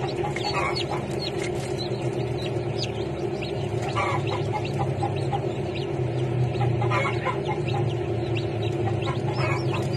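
Newly hatched chicks peeping, in short high calls that come in small clusters every few seconds, over a steady low hum.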